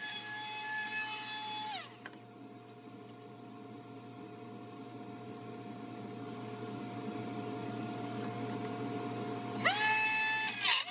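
Ryobi 18V cordless trim router running at full speed with a high whine, switched off about two seconds in and spinning down. Near the end it is switched on again and the whine rises quickly to speed.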